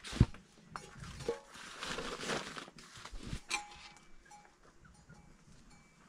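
Flour being scooped and worked by hand in a metal bowl on a plastic tarp, with rustling and a sharp knock just at the start. Livestock bells clink faintly in the background.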